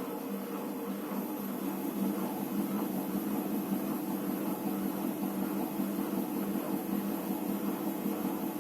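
Electrolux EWT 1377 VIW top-loading washing machine running with a steady low hum, its pitch shifting a little about a second in and growing slightly louder soon after.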